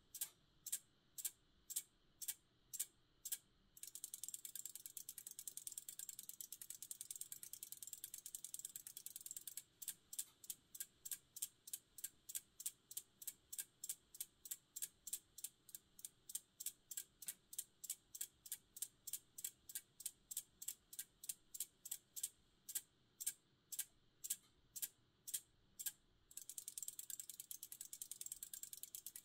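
A 1x7 flip-disc display's magnetic discs flipping with sharp, crisp clicks. Single clicks come about two a second, turn into a rapid run of clicks from about four to ten seconds in, return to steady single clicks, then run rapidly again near the end.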